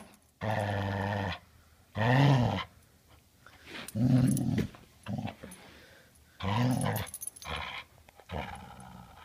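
Border collie growling with a tennis ball in its mouth: a string of about seven short growly "talking" calls, several rising and falling in pitch. It is grumbling in protest as it refuses to give the ball back.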